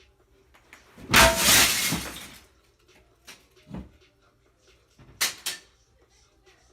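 A mirror crashing down and shattering: a loud crash about a second in that dies away over a second or so, then a few small knocks and another short sharp crash near the end.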